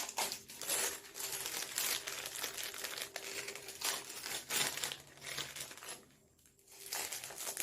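Plastic packaging crinkling and rustling as it is handled and opened, with a short lull about six seconds in.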